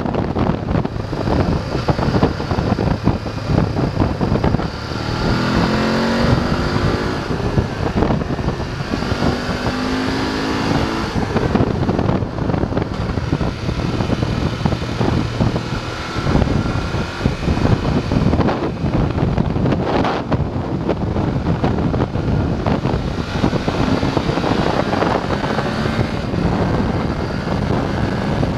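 BMW F 850 GS parallel-twin engine pulling the motorcycle along, its pitch rising twice as it accelerates in the first half, with wind buffeting the microphone.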